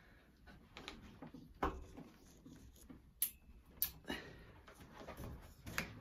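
A few sharp clicks and knocks from a HiteRite dropper seatpost being worked by hand: the saddle pushed down and springing back up.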